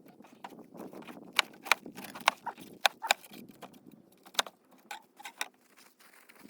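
A string of irregular sharp clicks and knocks, about a dozen, over a low rustling; the loudest cluster comes between one and a half and four and a half seconds in.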